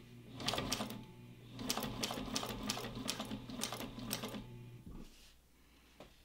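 Juki LU-1541 industrial walking-foot sewing machine stitching slowly through leather. Its needle strokes tick unevenly over a steady motor hum, and it stops about five seconds in.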